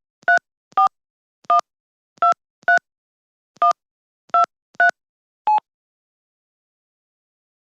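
Telephone keypad touch tones: about nine short two-tone beeps at an uneven pace, as a number is keyed in. The beeps stop about two-thirds of the way through.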